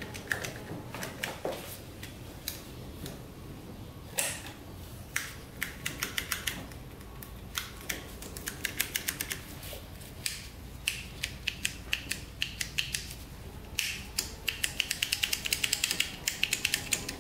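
Handlebar light switch on a 1998 Arctic Cat 300 ATV being flicked back and forth by hand: sharp plastic clicks in irregular runs, turning into quick strings of clicks near the end. The switch has just been sprayed with WD-40 and is being worked to free up its sticking contacts.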